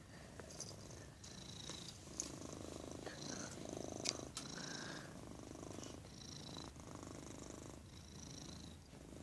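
A domestic cat purring close to the microphone, the purr swelling and easing in cycles of a second or two, with a couple of light clicks.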